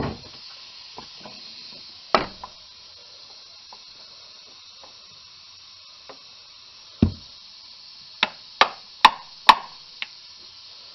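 Ball-peen hammer striking a large socket to drive a new seal into the aluminum transmission housing: a couple of separate knocks, then a run of about five quick sharp taps, roughly two a second, near the end.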